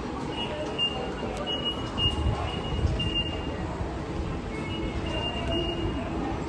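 Busy subway station concourse ambience: a steady din of footsteps and crowd noise, with short high electronic beeps from the automatic ticket gates repeating every second or so.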